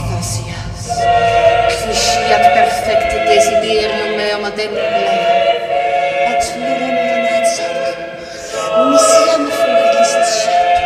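Choir singing unaccompanied in long held notes, dipping briefly about eight seconds in before resuming.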